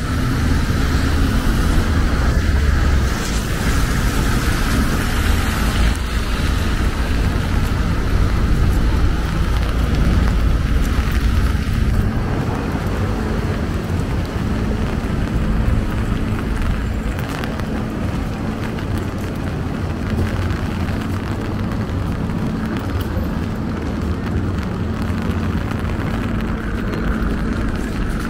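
Rainy city street traffic: a steady wash of road vehicles passing. A heavier low rumble over the first twelve seconds or so eases into a steadier, slightly quieter noise.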